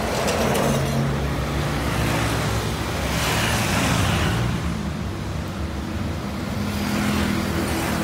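Road traffic passing close by: motorcycles, a car and a truck, with engines running and tyres on the road, and a low engine hum growing near the end as the truck approaches.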